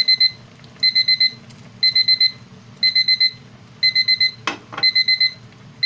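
Electronic alarm beeping in bursts of four quick, high beeps, one burst about every second, over a low steady background. A brief noise cuts in about four and a half seconds in.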